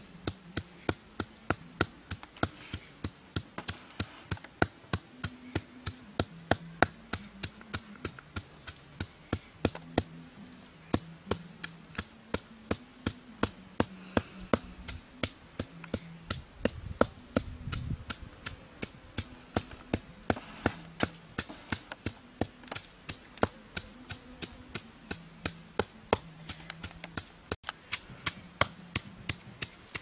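A pestle pounding food in a small bowl, a steady rhythm of sharp knocks about three a second.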